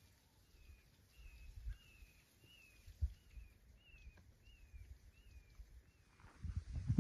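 A bird calling the same short, slurred whistled note over and over, about twice a second. Near the end a louder low rumble comes in, with a few low thumps earlier.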